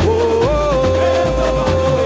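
Samba-enredo music played live: a steady deep bass beat under one long held melody note that steps up about half a second in.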